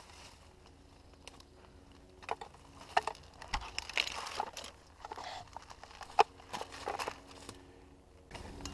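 Rustling and crunching of a person creeping through dry brush and leaves, with scattered sharp clicks, starting about two seconds in after a quiet start.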